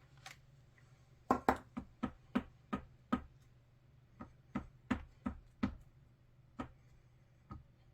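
About fifteen short, light taps in quick, irregular succession, some close together in pairs, starting about a second in: an ink pad being tapped onto a stamp to ink it.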